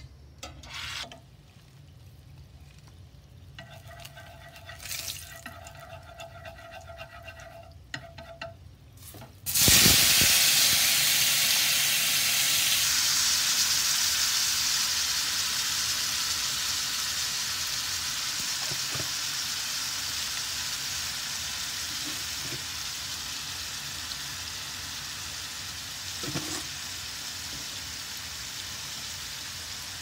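Chopped tomatoes tipped into a pan of hot oil, hitting with a sudden loud sizzle about a third of the way in that settles into a steady frying hiss and slowly fades. Before it, only light handling clicks and a faint steady hum.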